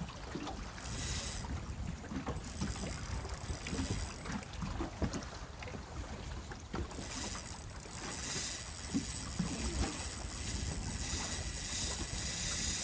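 Wind buffeting the microphone over water lapping against a small aluminium boat's hull, with a few light knocks on the boat.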